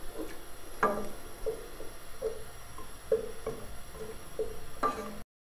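Wooden spoon knocking and scraping against a nonstick cooking pot as ghee melts in it: a series of light knocks, each with a short ringing from the pot, the loudest about a second in and again near the end.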